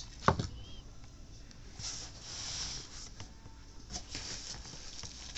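Fabric bolts and packing being handled on a cutting counter: a sharp knock about a third of a second in, then a soft rustle and a few light knocks.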